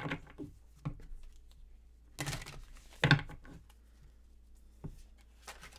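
A deck of tarot cards shuffled by hand, in several short bursts, the loudest about three seconds in.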